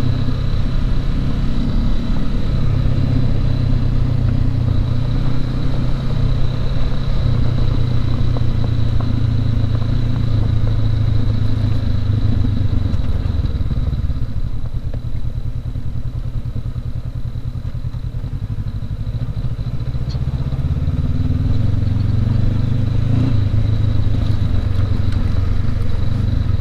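A 2019 Honda CB500X's parallel-twin engine running at riding speed on a gravel road, heard from the rider's seat. The engine eases off about halfway through and picks up again a few seconds later. A thin, steady high whine runs under it.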